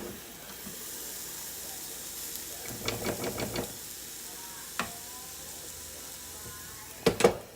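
Onions and mushrooms sizzling steadily in a hot cooker, with a quick run of light taps about three seconds in and two louder knocks near the end.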